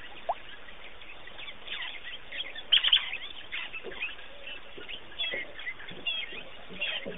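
Birds chirping: many short, high calls over a steady background hiss, with a louder burst of calls about three seconds in.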